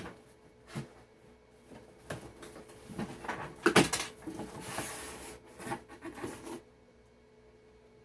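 Packaging being handled and opened: a string of knocks and clicks, the loudest just under four seconds in, with a brief rustle of packaging around five seconds, dying away about six and a half seconds in.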